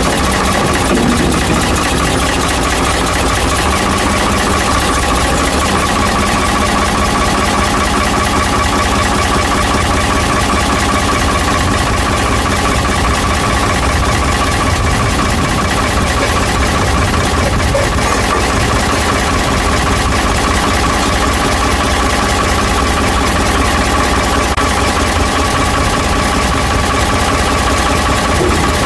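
Ford 555 backhoe's diesel engine idling steadily.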